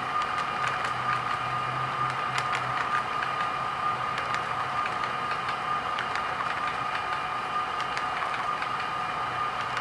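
HO scale model freight cars rolling by on the track: a steady high whine with irregular sharp clicks of the wheels crossing rail joints.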